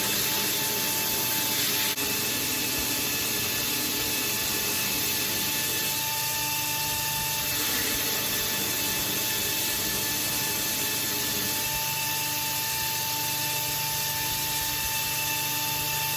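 Belt grinder running, with steel being ground against the belt: a steady rasping hiss with a faint whine that shifts slightly as the pressure on the blade changes.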